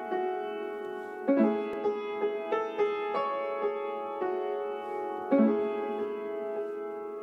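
Solo piano playing jazz chords in a song's introduction, with fuller chords struck about a second in and again a little past five seconds.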